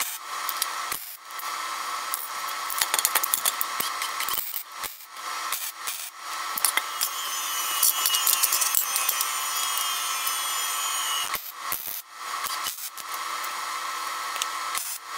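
MIG welder tack-welding 1.5-inch square steel tubing: a dense sizzling crackle in runs, broken by short pauses, with steel tubing being moved and set in place between tacks.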